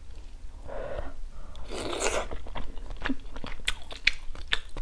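A person eating close to a collar microphone: wet chewing and mouth clicks, with a short slurp about two seconds in.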